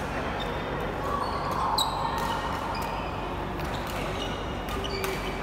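Badminton play on an indoor court: sharp racket strikes on the shuttlecock and short squeaks of shoes on the court floor, over a steady background hum.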